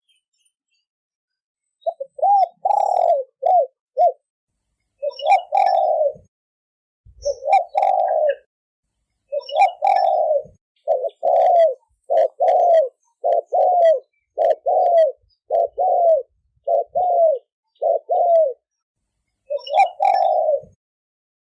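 Spotted dove cooing in the 'thổ kim' style used as a lure call for wild doves. It starts about two seconds in with longer phrases, then gives a run of short coos at a steady pace, and stops shortly before the end.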